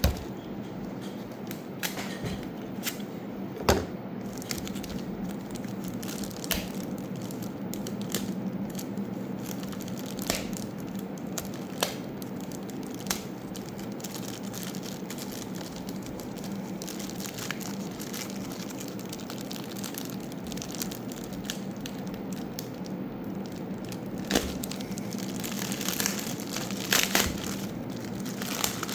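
Cardboard and plastic packaging being handled and opened: crinkling, crackling and tearing with scattered sharp clicks and knocks, busier near the end, over a steady low hum.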